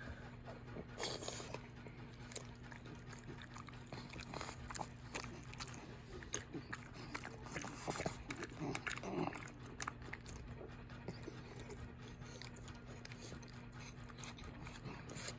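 A dog chewing meat: irregular chomping clicks and smacks, busiest from about six to nine and a half seconds in. A faint steady hum runs underneath.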